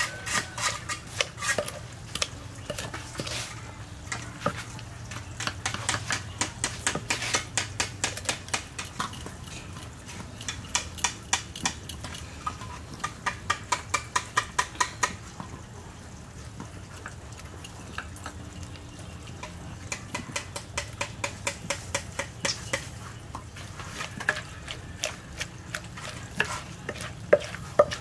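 Wooden pestle pounding salad ingredients in a wooden mortar: repeated sharp knocks at about three or four strokes a second, in runs with short pauses between.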